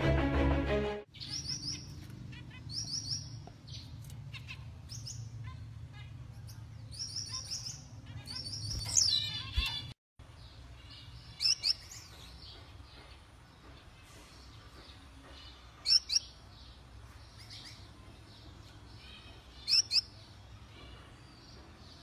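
Caged finches chirping: short high calls in quick clusters, with a louder sweeping call about nine seconds in. After a brief cut to silence, pairs of loud chirps come three times, about four seconds apart, over a low background hum. Intro music ends about a second in.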